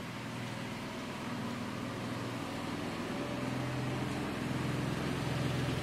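Lawn mower engine running steadily, growing gradually louder.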